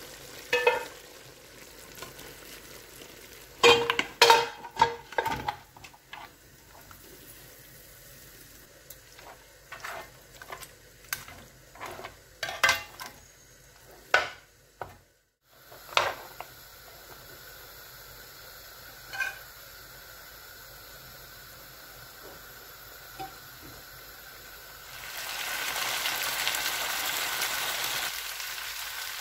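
Metal spoon clattering and scraping against the pressure cooker and pan as pieces of boiled mutton are lifted across and stirred. Then the mutton sizzles steadily in the pan, much louder near the end, as the leftover cooking liquid is fried off.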